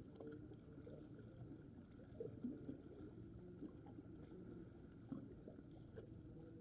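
Near silence: a faint wash of sea water lapping at a rocky shore, with a few tiny scattered knocks.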